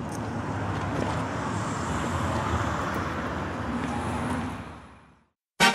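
A car's engine and road noise, steady, fading out shortly before five seconds in. Music cuts in right at the end.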